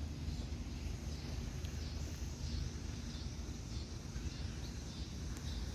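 Outdoor ambience: a steady low rumble under faint, quickly repeated high chirping calls of birds.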